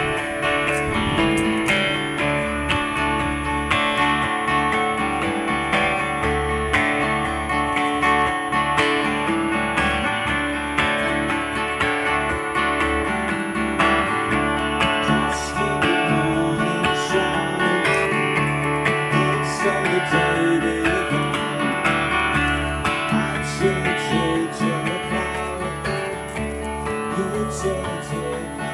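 Acoustic guitars played together live, strummed chords with picked notes over them.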